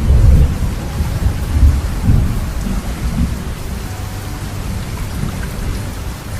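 Heavy rain falling, an even hiss, under a deep uneven rumbling that is loudest in the first two seconds or so and then eases.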